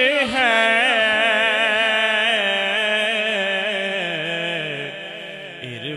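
A man singing a naat, drawing out one long wavering note that slowly falls in pitch and fades away toward the end.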